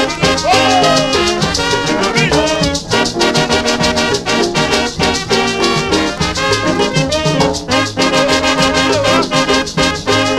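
Colombian guaracha costeña dance music playing loud over a sonidero sound system, with a steady percussion beat and horns.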